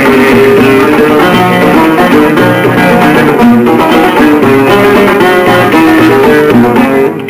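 Algerian chaabi instrumental interlude: a plucked-string ensemble plays a brisk stepwise melody in unison between sung verses, with no voice.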